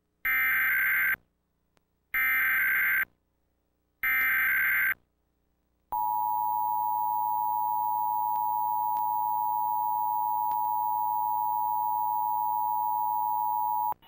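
Emergency Alert System test: three roughly one-second bursts of SAME header data tones, then, about a second later, the steady two-tone EAS attention signal held for about eight seconds.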